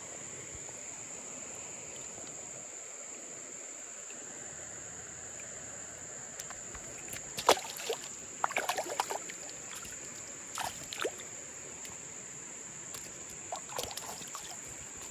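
Steady high-pitched drone of insects over a faint rush of moving water, with a few short scraping clicks from about halfway in and again near the end as fly line is stripped in by hand.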